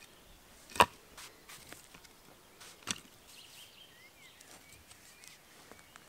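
Two sharp wooden knocks about two seconds apart, the first much louder: a wooden baton striking the spine of a bushcraft knife to split kindling (batoning).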